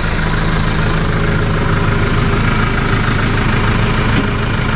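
Case IH 75C tractor's diesel engine running steadily, an even low drone.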